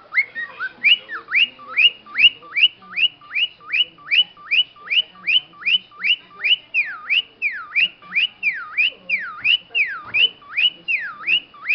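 Cockatiel whistling a car-alarm-like call: a fast, even run of short upward-sweeping whistles, about three a second. Partway through they change into notes that dip and then rise again.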